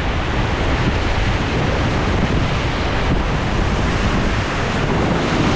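Steady, loud rushing and splashing of white-water river rapids around a paddled raft, with wind buffeting the microphone.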